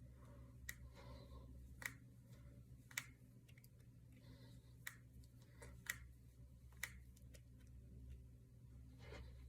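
Fingers and knuckles being cracked: sharp single pops, roughly one a second, over a faint steady hum.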